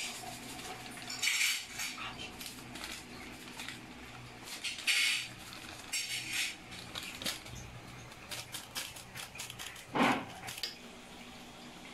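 Foil sachet of sinigang mix crinkling as it is shaken and squeezed over a pan, in short rustling bursts, with small clicks and taps and one duller knock near the end.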